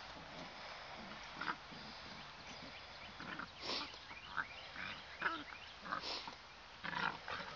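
A white German shepherd and its six-week-old puppy play-fighting: short, scattered growls and yips, coming more often from about three seconds in.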